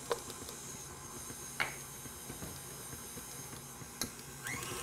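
KitchenAid stand mixer running at low speed with a steady, quiet motor hum as it beats brown sugar into cream cheese, with a few faint light clicks.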